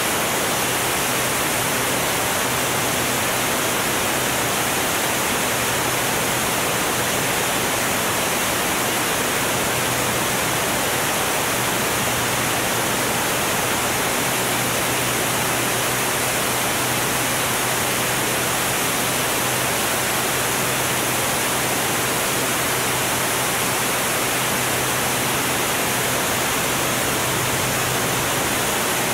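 Steady rush of slipstream wind and engine noise from a camera mounted on a Formula One racing airplane flying at about 215 mph, with a constant low drone from the small piston engine underneath.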